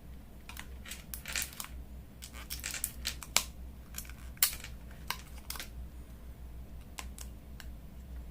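Small clicks, taps and brief scratching of hand tools working at the battery sticker inside an opened Vivo Y11 smartphone, with two sharper clicks about three and four and a half seconds in. A steady low hum runs underneath.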